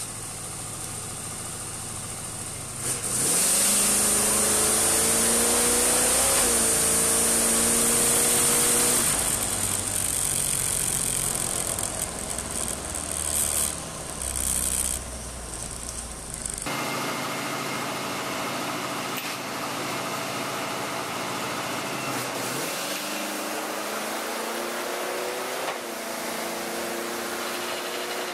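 Race engine driving a Powerglide transmission on a dyno, revving up off the trans brake about three seconds in and held at high revs for several seconds before easing off. A second, softer rise in revs comes near the end.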